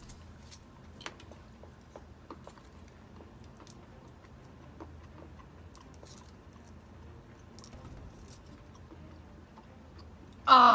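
Faint crunching and small clicks of a man chewing a crunchy dark chocolate bullet with his mouth closed. Near the end, a loud vocal exclamation from him, falling in pitch.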